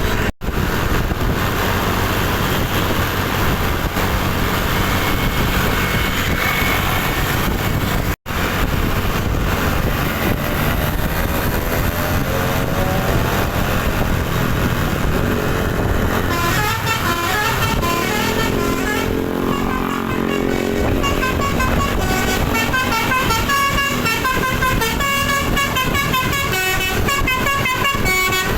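A bus's telolet horn, a multi-tone musical horn, playing quick, changing melodies of toots over loud engine and traffic noise. The tune is plainest through the second half.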